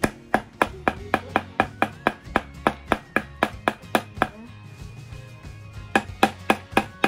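Small hammer driving nails into a thin wooden panel: quick, even blows about four a second, each with a short ring. The blows stop about four seconds in and start again near the end.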